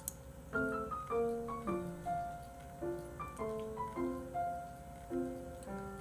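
Gentle solo piano music: a slow melody over chords, each note struck and fading.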